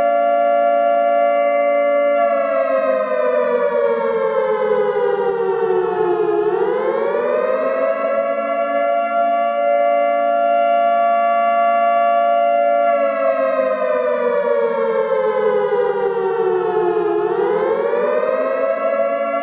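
A siren wailing: a held tone that slowly falls over about four seconds, then quickly climbs back to its pitch, twice.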